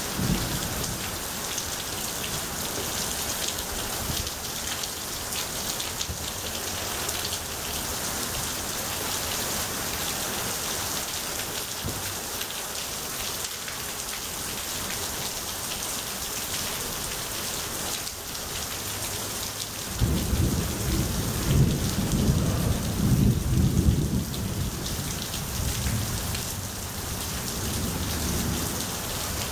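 Heavy rain pouring steadily. About two-thirds of the way through, thunder breaks suddenly and rumbles for several seconds before fading.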